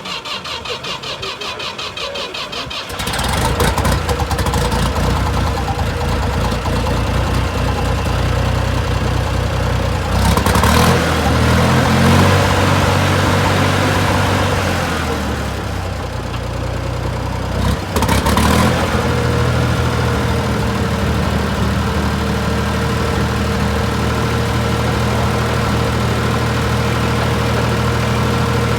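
Ford 4000 tractor engine cranked over by the starter for about three seconds, then catching and running. Its speed rises and falls for a while, then it settles into a steady idle.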